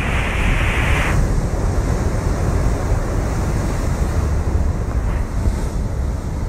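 Ocean surge rushing and churning as white water in a sea cave below, under heavy wind rumble on the microphone. A brighter hiss of the rushing water eases off about a second in.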